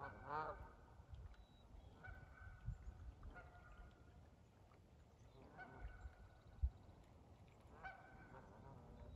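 Canada geese honking on a pond, about five separate honks, the strongest right at the start. A single short low thump about two-thirds of the way through.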